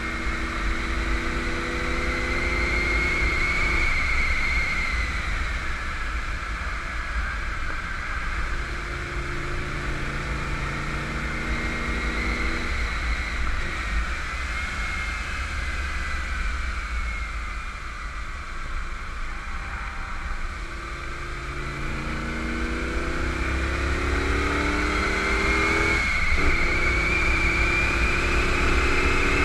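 1991 Camaro Z28 1LE's 305 TPI V8 under power, over heavy wind and road noise. The engine note eases off and goes quieter around the middle, then climbs steadily in pitch and drops sharply about three seconds before the end, as at an upshift, before pulling again.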